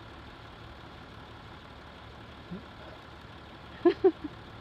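Land Rover SUVs idling in the cold with a steady low hum. Two short loud sounds come about four seconds in, followed by a smaller one.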